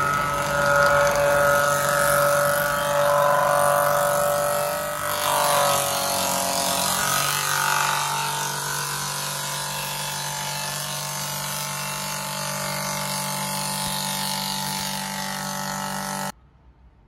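Electric cutting machine scooping the back of a wooden tennis cricket bat to take weight off. It runs steadily, its tone changes about six seconds in, and it cuts off suddenly near the end.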